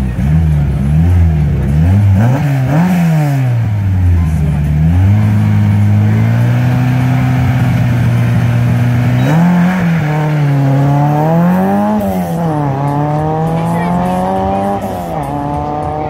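Peugeot 205 Rallye rally car's engine blipped repeatedly at the start line, then held at steady raised revs for a few seconds. It then launches and accelerates hard, revs climbing through two quick gear changes and fading near the end as the car pulls away.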